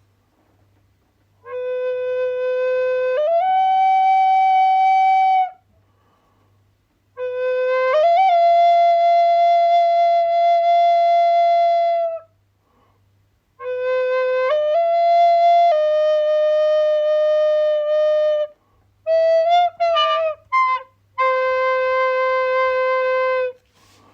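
A flute playing slow phrases of long held notes with short pauses between them. Each phrase starts on a low note and steps up to a higher one, and near the end there is a run of short, quick notes before a last held note.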